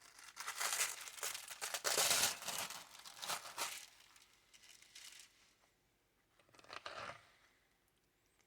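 Crinkling and rustling of the frozen dinner's plastic packaging, in a run of bursts over the first five seconds and once more about seven seconds in.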